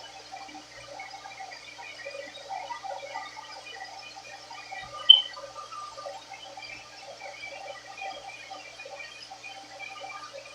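Turbo Styler hand-held blow dryer running steadily, giving a continuous airy rush with a faint motor hum. A brief sharp high-pitched click cuts through about five seconds in.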